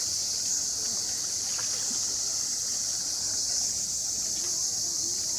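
Steady, high-pitched chirring of a chorus of insects, unbroken throughout.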